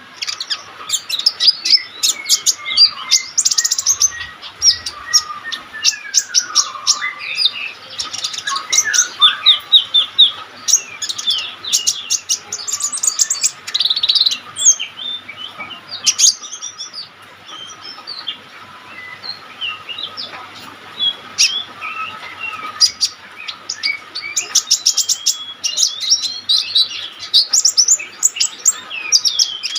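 Kolibri ninja (konin) sunbird singing hard: a fast, high twittering of chirps and trills, almost without pause, with a quieter stretch in the middle.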